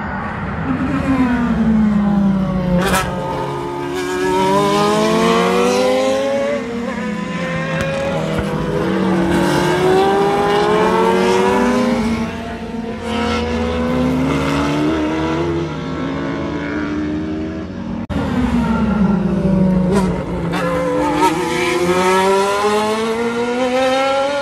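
Group C sports-prototype race cars passing one after another under hard acceleration. Their engines climb in pitch, drop at each gear change and climb again, then fade as each car goes by.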